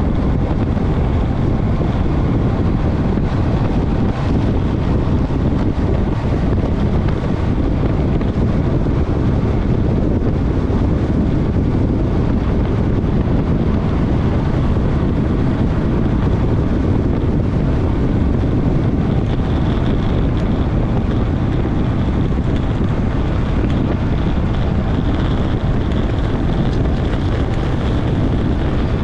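Steady, loud wind noise buffeting the microphone of a bike-mounted camera as a road bike descends at high speed.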